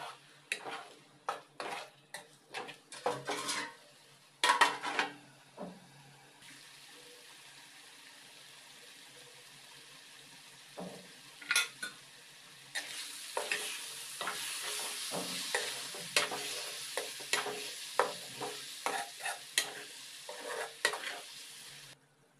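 Metal spoon stirring tomato egg curry in a metal kadai, with irregular clinks and scrapes against the pan. From about halfway the curry sizzles more loudly, with more stirring clinks over it, until the sound cuts off just before the end.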